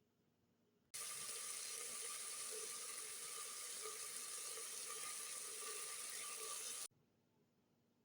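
Water running in a steady stream for about six seconds, starting and stopping abruptly.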